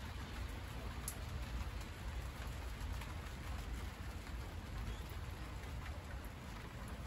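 Rain falling on monstera leaves: a steady hiss of rain with a few sharper individual drop taps and a low rumble underneath.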